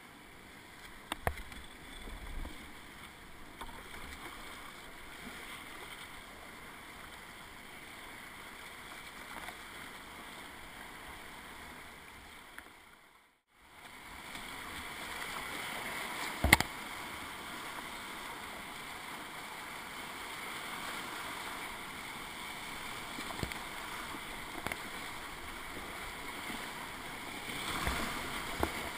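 Whitewater rushing close around a kayak, with paddle strokes splashing and a few sharp knocks, the loudest about halfway through. The sound drops out briefly just before the middle.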